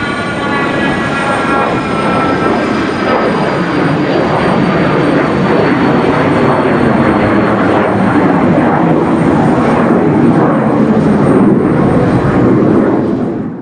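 Hawker Beechcraft 400A business jet's twin rear-mounted turbofans at takeoff power as it climbs away. A high whine falls slightly in pitch and fades in the first few seconds, leaving a steady, loud jet roar that cuts off abruptly at the end.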